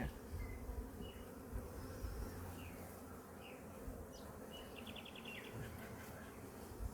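Honey bees buzzing around an open hive and a frame of comb, a steady low hum from many bees including drones.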